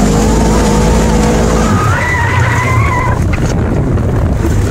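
Off-road vehicle driving over desert gravel with a side window open: heavy wind rumble and tyre noise over the running engine. About two seconds in, the engine's steady note gives way to a higher, slightly rising whine.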